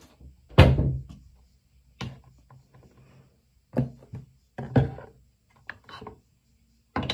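A series of knocks and clunks as things are handled at a bathroom vanity: wooden cabinet or drawer and items set down on the counter. The loudest knock comes about half a second in, with smaller ones every second or so after.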